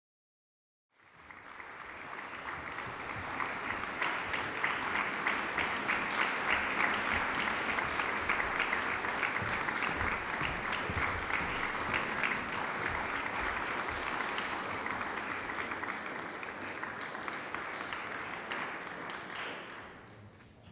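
Audience applauding: it starts about a second in, builds over the next few seconds, holds steady, and dies away near the end.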